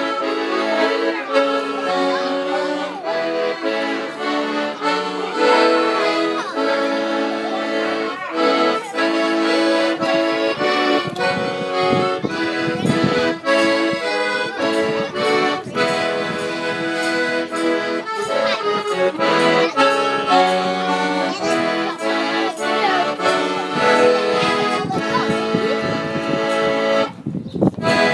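Church music: held, reedy chords that change every second or so, with voices singing and a steady beat.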